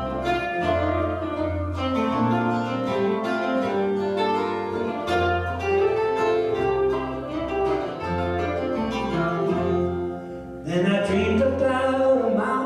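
Instrumental break of a folk/bluegrass string band: acoustic guitar picking a lead over plucked upright bass notes. About eleven seconds in, the music dips briefly and a man's voice comes in singing.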